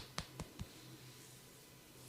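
A barber's hands making the last few quick, sharp snapping taps of a head massage, about five a second, growing quieter and stopping about half a second in. Only a faint low hum remains after them.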